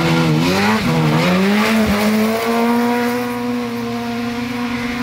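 Rally car's engine running hard at high revs, its pitch dipping and climbing back twice in the first second or so, then held on one steady high note for the rest.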